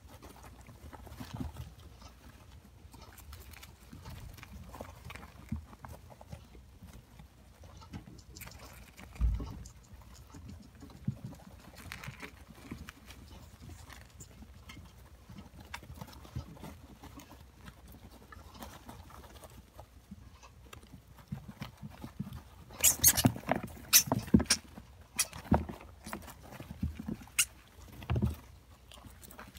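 Hamsters scrabbling and rustling in wood-shaving bedding, claws scratching and clicking on a plastic bin. There are scattered small clicks throughout, then a burst of louder clicks and knocks about three-quarters of the way through.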